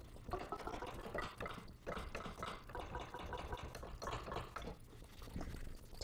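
A baseball-bat hit sample played from a keyboard sampler: a quick, irregular run of short knocks.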